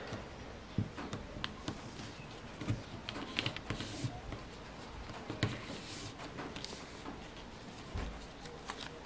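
A sheet of paper being folded and creased by hand on a tabletop: short, scattered rustles and crinkles as the paper is pressed and handled.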